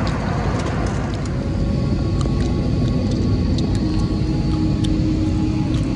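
Steady low rumble of an airliner's engines and airflow heard inside the passenger cabin, with faint scattered clicks. A steady hum joins about two seconds in.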